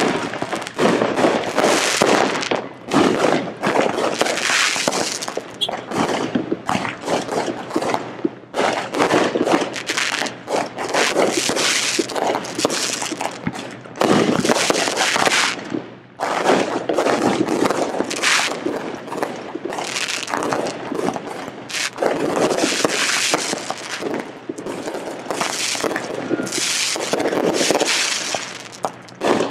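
Aerial fireworks going off in rapid succession: dense crackling and popping over repeated bangs, with brief lulls about halfway through and near the end.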